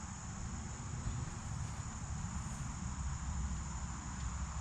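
Insects trilling steadily in one unbroken high-pitched tone, over a low rumble.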